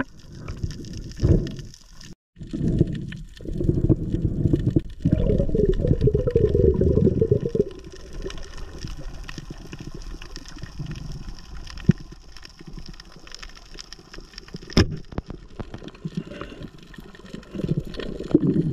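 Water sloshing and gurgling around a camera held underwater, heavy for the first eight seconds and then quieter. About fifteen seconds in comes a single sharp snap, the speargun being fired.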